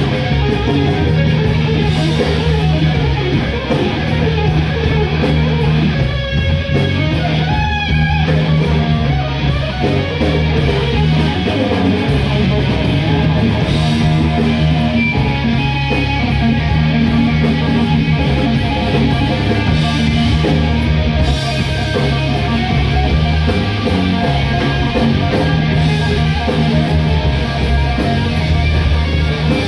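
Live rock band playing loudly: electric guitar over bass guitar and drums, with bent guitar notes about a third of the way in.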